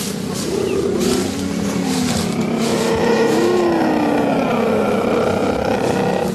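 Big cats growling and snarling: a rough, continuous rumble with a few short moaning calls that rise and fall.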